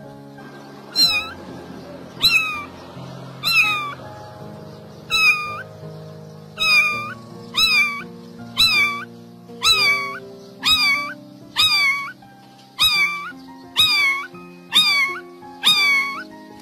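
A lone tabby kitten meowing loudly over and over, about once a second, short crying calls of a kitten with no mother around. Background music plays underneath.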